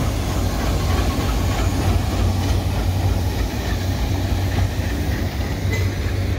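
Diesel locomotive hauling a train past, its engine running with a steady low drone, while the coaches roll by on the rails.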